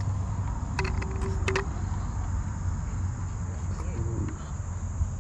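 Steady high chirring of insects in the grass, with a couple of sharp clicks about a second in.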